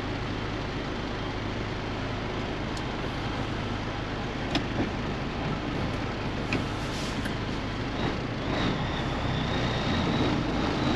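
Caterpillar 3406B diesel of a Peterbilt 362 cabover semi running steadily as the truck drives, with a few light clicks. The engine note changes about eight seconds in, and a faint high whine comes in near the end.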